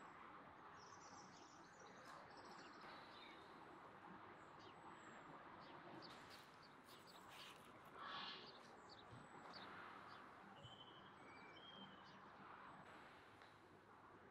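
Near silence: faint outdoor background noise, with a few faint bird chirps.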